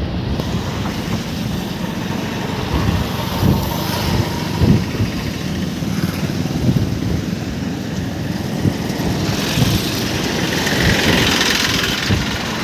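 Steady running noise of a vehicle moving along a road, with wind buffeting the microphone. A higher hiss swells and fades about ten seconds in.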